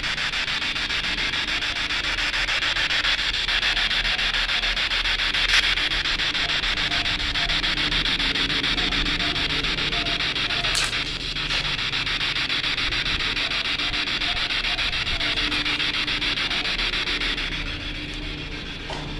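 Steady hiss of static from a handheld portable radio with its antenna up, used as a spirit box to listen for voices. Two sharp clicks break it, about a third of the way and halfway through, and it drops a little near the end.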